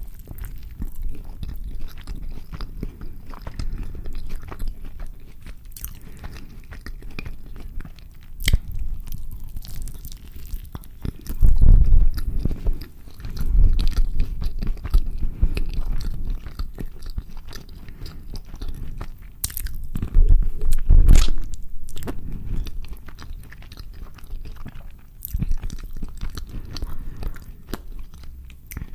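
Close-miked biting and chewing of a carne asada burrito, with irregular wet mouth sounds and scattered small clicks. The chewing grows heavier and louder for a few seconds just before the middle and again about two-thirds of the way through.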